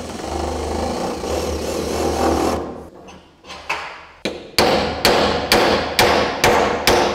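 Cordless drill boring a wider hole into a plywood worktop, running steadily for about two and a half seconds. After a couple of light taps, a hammer strikes a bolt head about twice a second to drive it flush into the wood.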